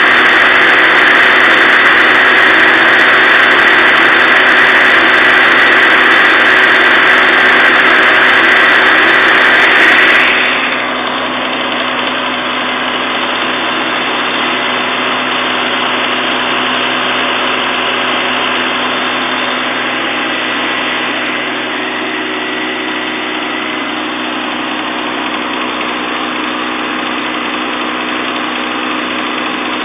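A 12 V DC motor spinning the fan and gears of a K'nex model turbofan, a steady whirring whine. About ten seconds in it drops noticeably quieter and duller, then runs on evenly.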